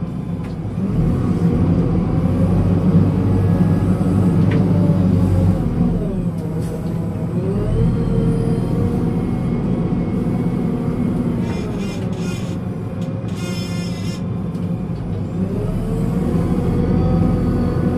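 Backhoe loader's diesel engine running, its pitch rising and falling as it revs, with a few short high-pitched squeals past the middle.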